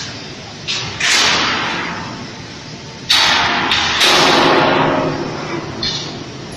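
Electric arc furnace arcing between its graphite electrodes and the scrap charge: a series of sudden loud cracks and blasts of crackling noise, each dying away over about a second, the loudest a little past the middle.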